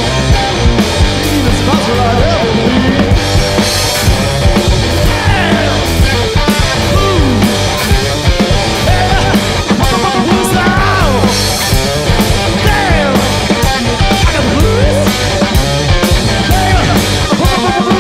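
A live punk-blues band playing loud, distorted rock: electric guitar with many bending notes over a steady drum-kit beat.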